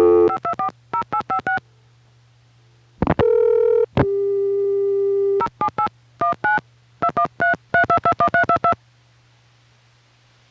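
Touch-tone dialing on a 1970s analog phone line to place a Sprint long-distance call. The dial tone cuts off into a quick burst of touch-tone digits for the local access number. About three seconds in, a brief tone is followed by Sprint's special dial tone, which holds for about a second and a half, and then a longer run of touch-tones dials the access code and the distant number. A low hum sits under the line until the dialing ends.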